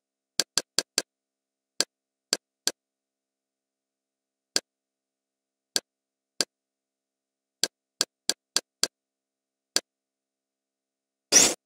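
Kodi interface navigation clicks: short, sharp ticks, one for each step through the TV guide, coming in uneven runs of two to four with pauses between. A brief, fuller sound follows near the end.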